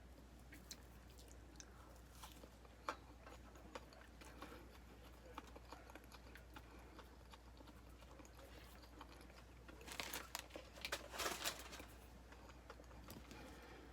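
Faint chewing of a soft marshmallow Peeps candy, with small mouth clicks, and two short louder noisy sounds near the end.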